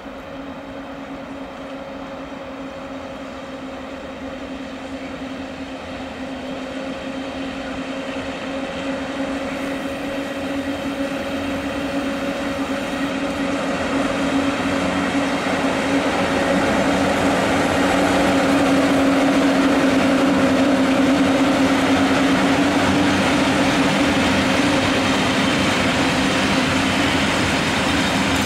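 EU07 electric locomotive hauling a freight train of wagons loaded with steel coils, approaching and passing. A steady hum and the rolling of wheels on rails grow louder, are loudest about two-thirds of the way in as the locomotive goes by, then the loaded wagons roll past.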